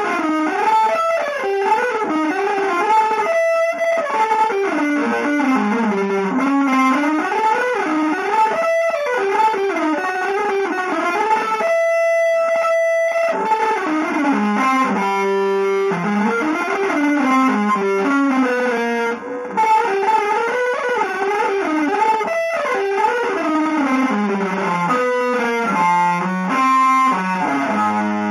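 Electric guitar playing a fast single-note melodic line in an avant-garde jazz style, with runs sweeping up and down and a sustained note held for about a second and a half around twelve seconds in, lightly coloured by effects.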